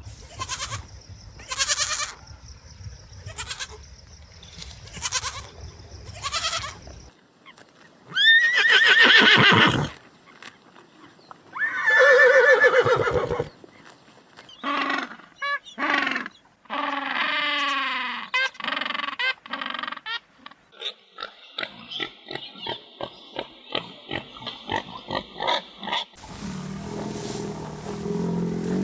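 Farm animals calling: a series of separate calls, the two loudest long and pitched, followed by a run of shorter calls and then a quick pulsing stretch.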